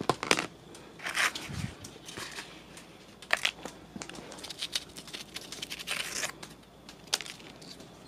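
Dry fallen leaves crinkling and crackling in irregular short bursts as they are gathered up by hand into a plastic basket.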